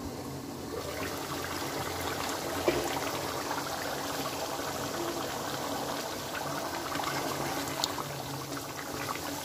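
Thick beef karahi gravy bubbling and spluttering in the pan as its water cooks down nearly dry, with a couple of sharp clicks.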